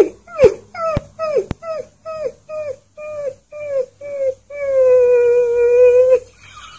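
Husky-type puppy giving a quick run of short yips, each dropping in pitch, about three a second. About two thirds of the way in it breaks into one long, steady howl.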